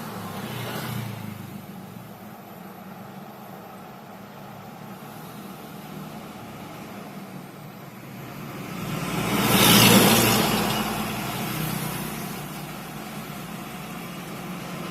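Road traffic with engines running at a low rumble. One vehicle passes close about ten seconds in, growing louder and then fading.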